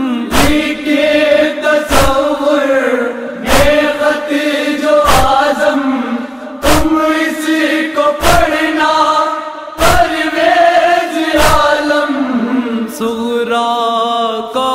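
Male noha chanting, a mourning elegy sung in Urdu, over a steady thump about every second and a half: the beat of matam chest-beating.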